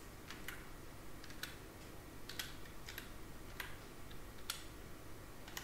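Computer keyboard being typed on slowly, one key at a time: a quiet, irregular run of separate key clicks as a short exam code is entered.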